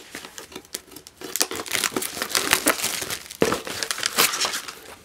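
Clear plastic wrap crinkling and cardboard rustling as a cardboard mailer is handled and its plastic wrapping pulled open. The crinkling gets louder and busier from about a second in.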